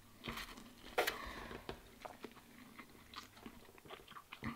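A person chewing and slurping a large mouthful of instant ramen noodles: quiet, irregular wet mouth sounds and short slurps, the loudest about a second in.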